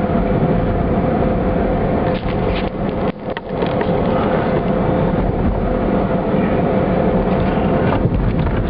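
Car driving along a paved road, heard from inside the cabin: steady road and engine noise with a faint steady hum, and a few clicks about three seconds in.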